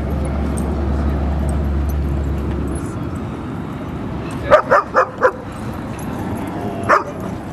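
A dog barking: four quick barks about four and a half seconds in, then a single bark near the end.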